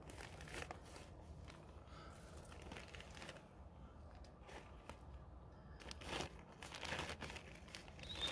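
A bag rustling and crinkling in irregular bursts as it is handled and clothes are pulled out of it.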